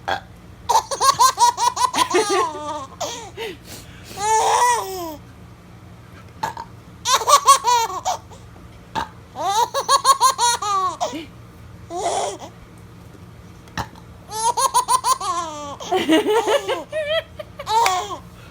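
A six-month-old baby laughing in repeated bouts of quick, high-pitched laughs, set off by its mother's burps, which come between the bouts.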